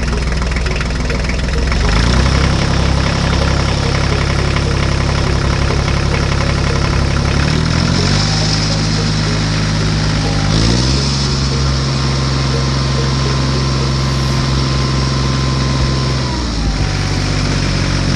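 Engine sound of a tractor running steadily, laid onto the video as a sound effect, its pitch shifting up and down a few times.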